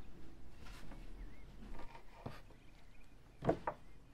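Wooden spoon knocking and scraping against small clay spice pots and a wooden bowl as ground spices are spooned out: a few short knocks, the loudest a quick double knock near the end.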